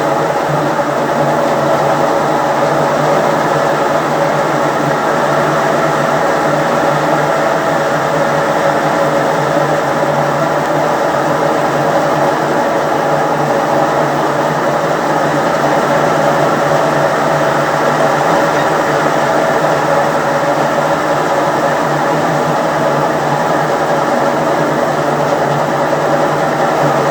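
Washing machine running with a damaged drum bearing: a loud, steady mechanical drone that does not let up.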